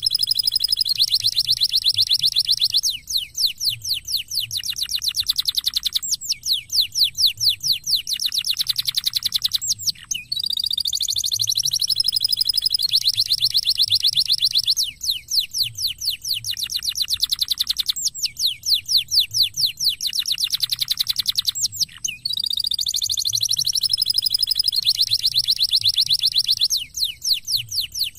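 Canary singing loudly in long, rapid trills and rolls of quickly repeated high notes, broken by short pauses. The same sequence of phrases comes round again about every twelve seconds.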